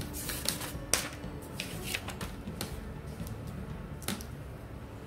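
Handling noises of picture cards and a plastic-framed card board being swapped: a string of sharp clicks, taps and short rustles, most in the first three seconds, with one more about four seconds in.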